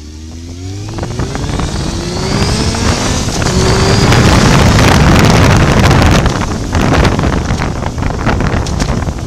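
Motorcycle engine accelerating, its pitch rising for the first few seconds. Wind then buffets the camera microphone as speed builds and largely drowns the engine.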